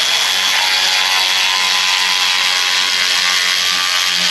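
Power ratchet running steadily, driving a hose clamp's screw tight around a loose, rattling exhaust heat shield.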